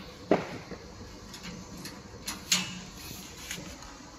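Sheet-metal side door of a laser welder's wire-feeder cabinet being shut by its latch handle: a sharp knock about a third of a second in, then a few lighter clicks around two and a half seconds in.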